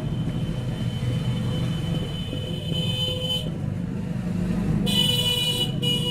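Road traffic rumbling, with a vehicle horn held steadily for the first three seconds or so and a louder horn blast about five seconds in.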